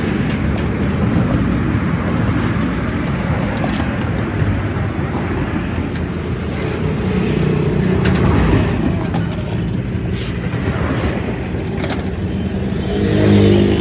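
Motor-vehicle engine running steadily, with a few faint clicks and a brief swell in level near the end.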